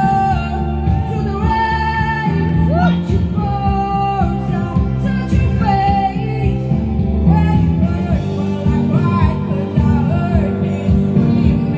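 Live singing with musical accompaniment: a voice holding long notes with vibrato over a bass line that steps from note to note.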